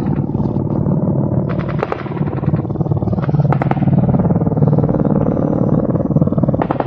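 Low-flying Mi-8 twin-turbine transport helicopters passing close, a fast, steady beat of rotor blades over turbine noise that grows louder over the first few seconds. A few sharp cracks of small-arms fire come through, about two seconds in, around three and a half seconds in and near the end.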